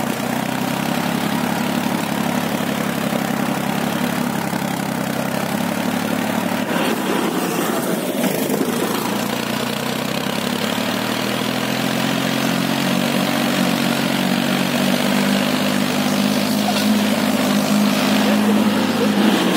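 Diesel engine of an HMT 3522 tractor running steadily while the tractor is driven. Its pitch dips slightly about halfway through and climbs again later on.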